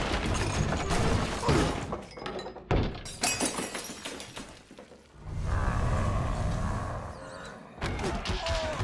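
Cartoon fight sound effects: a string of crashes and breaking glass over a film score, with a steady low rumble in the second half.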